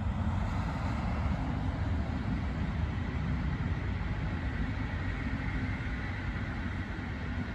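Flixtrain passenger train hauled by a Class 182 electric locomotive passing by, a steady rumble of wheels on the rails.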